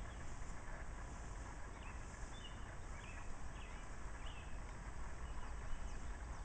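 Outdoor ambience: small birds giving short chirps about once a second over a steady low rumble and hiss.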